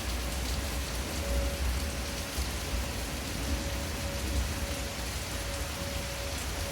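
Steady hiss of heavy thunderstorm rain with a low rumble underneath, and a faint steady tone running through it.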